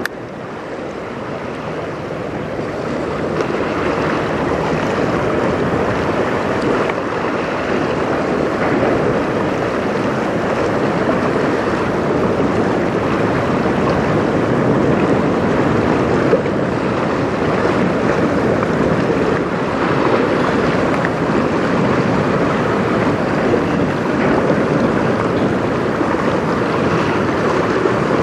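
Steady rushing noise of wind on the microphone and choppy river water, building over the first few seconds and then holding.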